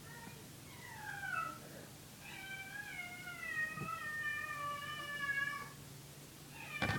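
House cat meowing: a short falling meow about a second in, then one long drawn-out meow lasting about three seconds.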